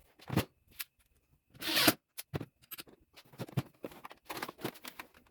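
Handling noise as an old Sony audio-video receiver is lifted and hung: scattered knocks and clicks, a short rasping scrape a little under two seconds in, then a quick run of small clicks and taps.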